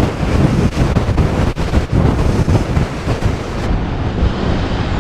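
Strong wind buffeting the microphone: a loud, continuous rumbling roar with gusts.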